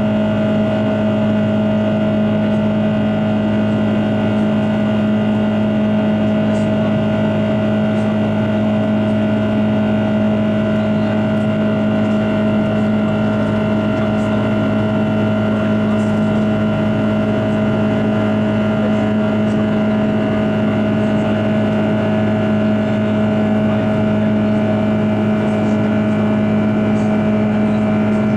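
Cabin noise of an Airbus A330-300 climbing after takeoff, heard inside beside the wing-mounted Rolls-Royce Trent 700 engine: a steady jet drone with several steady humming tones over the rush of air.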